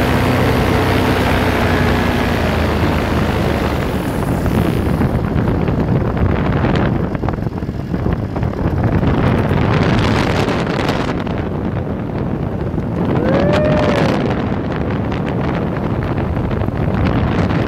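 Paramotor engine and propeller running steadily, with heavy wind noise on the microphone. The engine's hum is clear for the first couple of seconds, then is mostly buried in the wind. A short tone rises and falls about thirteen seconds in.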